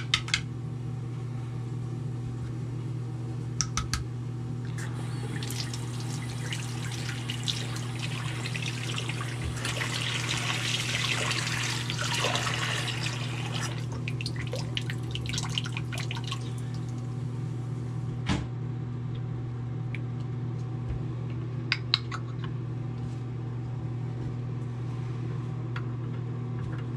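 Bathroom faucet running water into the sink with its aerator removed, growing louder about five seconds in and shut off around fourteen seconds. A few sharp clicks of small parts being handled, and a steady low hum underneath.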